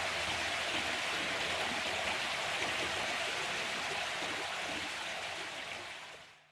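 River water flowing and rushing steadily, then fading out near the end.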